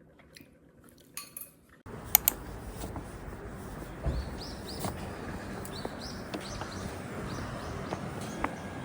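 Dishes and cutlery clinking over a steady background hum, starting abruptly about two seconds in, with a few short high chirps.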